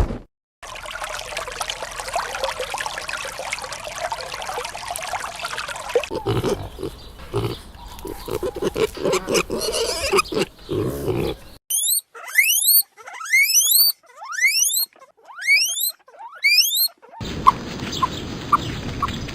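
Pig grunting in short low pulses, followed by a run of about ten short, high, rising squeals.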